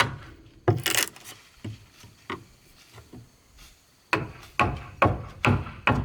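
Repeated tool strikes on wood. A few irregular knocks come first, then from about four seconds in a steady run of louder strikes, about two and a half a second.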